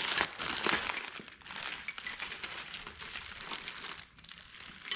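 Packaging crinkling and rustling as boxed hardware parts are handled, with irregular small crackles throughout.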